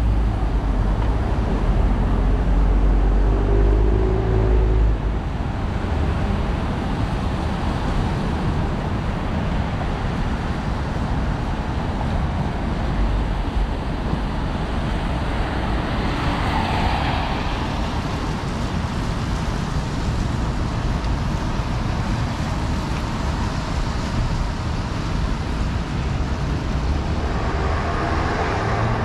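City traffic at a wet intersection: car engines and tyres on wet pavement. A nearby vehicle's engine rumbles deeply for the first five seconds, and one vehicle swells louder about sixteen seconds in.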